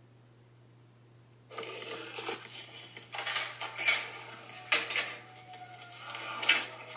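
Near silence, then from about one and a half seconds in, irregular clattering and knocking of hard objects, like dishes or utensils being handled.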